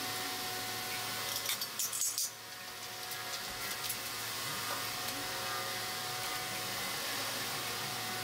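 A few light metallic clinks, between about one and a half and two seconds in, from the hoist chains and steel as the engine is settled onto the jack stands, over a steady background hum.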